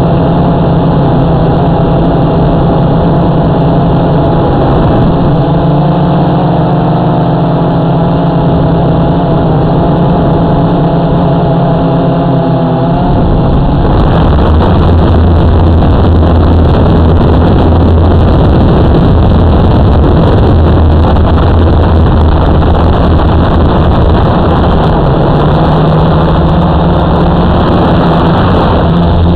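Motor and propeller noise of a small radio-controlled aircraft, heard from its onboard camera: a loud, steady buzz whose pitch wavers. About halfway through it turns into a louder, rougher rushing sound with a deep hum underneath.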